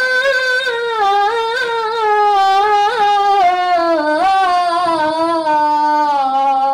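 A boy singing a line of Arabic verse unaccompanied for a daf muttu performance, in long held, ornamented notes whose pitch sinks slowly before the line breaks off near the end. No daf drum strokes are heard.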